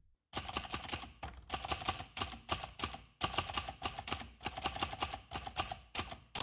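Typewriter keys clacking in a quick run of strokes, several a second, with two short breaks, as a typing sound effect.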